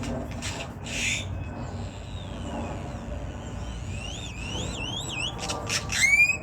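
Grackle calling: a few dry clacks and a harsh burst near the start, then a string of rising whistled notes, ending in loud clicks and a sharp upward whistle. A steady low rumble runs underneath.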